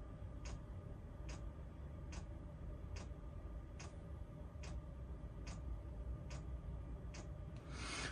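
Regular sharp ticking, a little faster than once a second, over a low steady hum, with a rustle near the end.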